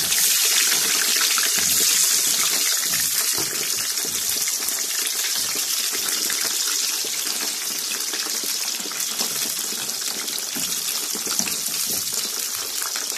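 Small slit eggplants deep-frying in plenty of hot oil: a steady, dense sizzle with fine crackling, loudest at first and easing off gradually.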